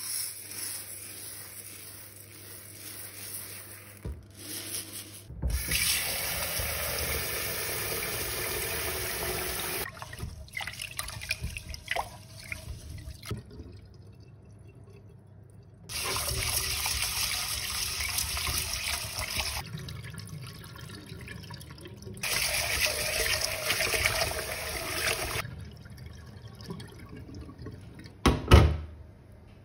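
Running water, turned on and off in several spells of a few seconds each, with quieter pauses and light knocks between them; one louder knock near the end.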